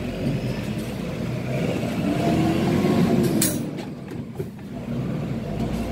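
Mitsubishi Fighter truck's diesel engine heard from inside the cab as the truck pulls away, the engine note rising and then falling again about two to three seconds in. A short sharp hiss comes about three and a half seconds in.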